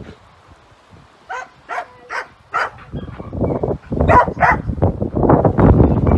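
A puppy giving short, high yips and barks: four in quick succession from about a second in, then two more near the middle. Low wind rumble on the microphone rises over the second half.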